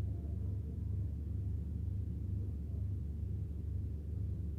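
Steady low hum of room background noise, with no other distinct event.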